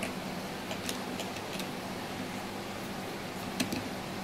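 Light metallic clicks of chainsaw chain links and a screwdriver tip tapping against the guide bar as the chain is worked into the bar, a few scattered ticks with a sharper one near the end, over a steady background hiss.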